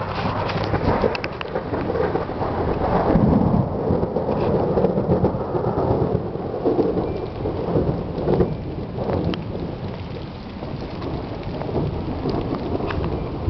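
Long rolling thunder rumble that swells a few seconds in and slowly eases off, with rain falling.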